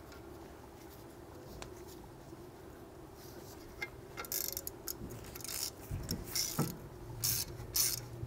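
Short, irregular scraping and ratchet clicks as a T30 Torx screw is run in to hold a brake rotor on the hub with a quarter-inch driver. They start about three seconds in after a quiet stretch and get louder near the end.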